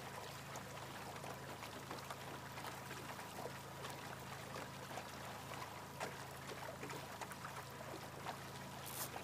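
Water lapping and trickling against an aluminum boat's hull as it trolls slowly, over a low steady hum, with scattered faint ticks.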